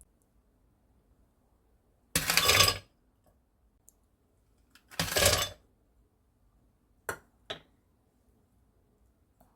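Two short clattering bursts about three seconds apart, like dishes or glassware being handled, then two light clicks.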